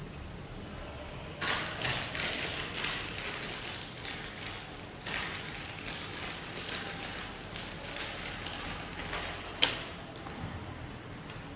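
Irregular clicking, rattling and scraping of small plastic and metal laptop parts being handled as the hard drive is worked out of the open laptop, with one sharp click near the end.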